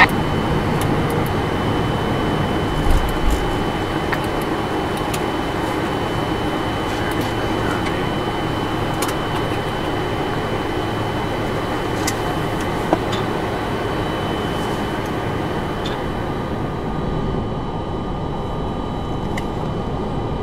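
Steady hum and hiss on a Boeing 747-400 flight deck with the engines running at idle after start, carrying a thin steady high whine. A few faint clicks, like switches being set, come and go.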